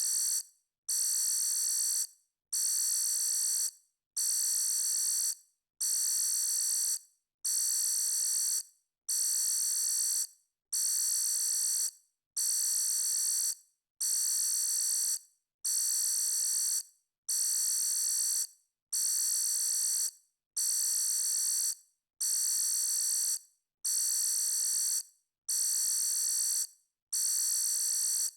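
Electronic alarm sounding a high-pitched beep over and over, each beep about a second long with a short gap, repeating roughly every second and a half.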